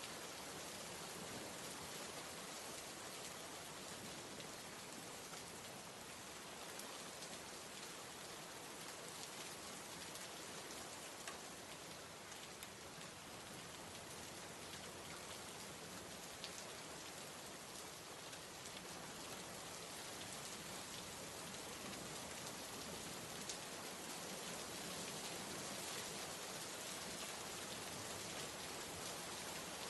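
Steady rain falling, with faint drops pattering on a surface.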